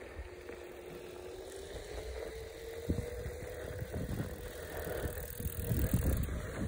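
Handling noise and soft knocks from a phone carried alongside a mountain bike being walked, with cloth rubbing the microphone. A faint steady hum runs underneath, slowly rising in pitch, and the knocks get louder toward the end.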